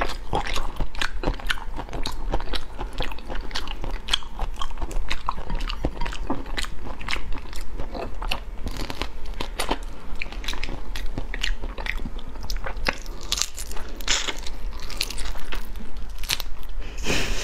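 A person biting and chewing whole shrimp in sauce: a fast, irregular run of crunchy clicks mixed with wet mouth sounds.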